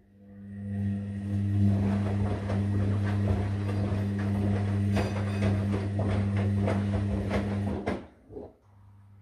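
Sangiorgio S5510I washing machine moving water: a steady hum over rushing, gurgling water with many small splashes and clicks, swelling in quickly and cutting off suddenly after about eight seconds.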